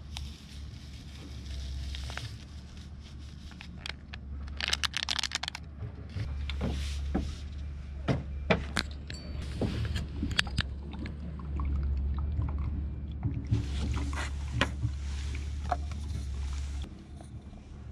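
Compact cartridge gas camping burner running with a steady low rush under a metal cook pot, while cocoa is stirred in the pot with scattered clicks, knocks and liquid sloshing. Near the end the burner is turned off and its rush stops.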